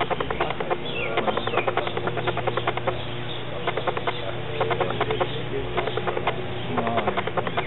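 Large-scale garden-railway model train running: rapid, irregular clicking of its wheels over rail joints, over a steady low hum.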